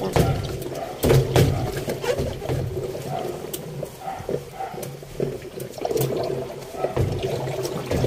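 Damp laundry being shifted by hand inside a top-load washing machine tub: uneven rustling and watery sloshing with small knocks against the tub.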